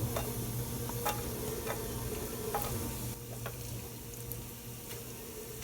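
Minced garlic sizzling in hot vegetable oil over high heat, with scattered clicks of a spatula stirring it in the pan.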